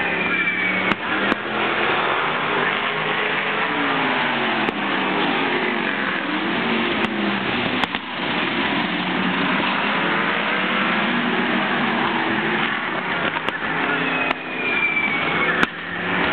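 Several winged sprint cars' V8 engines racing around the oval together. Their overlapping engine notes keep rising and falling as the cars come on and off the throttle and pass by.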